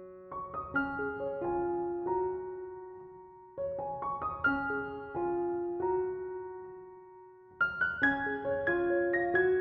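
Background piano music: gentle melodic phrases of struck notes that ring and fade, with a pause around three and a half seconds in and another near seven and a half seconds.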